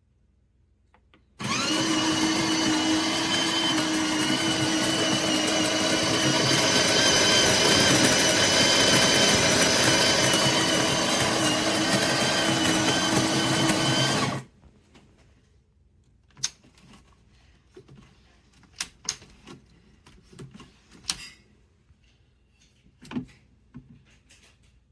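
Built-in burr grinder of a De'Longhi La Specialista Maestro espresso machine running steadily with a whining motor tone for about thirteen seconds, starting and stopping abruptly. A few light clicks and knocks follow.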